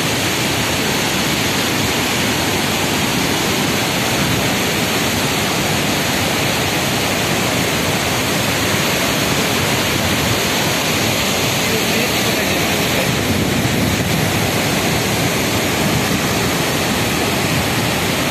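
Waterfall and rocky whitewater rapids: heavy water rushing in a loud, steady noise.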